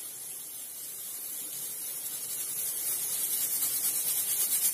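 Stovetop pressure cooker hissing steadily as steam leaks around its weight, the hiss growing gradually louder as pressure builds up before its first whistle.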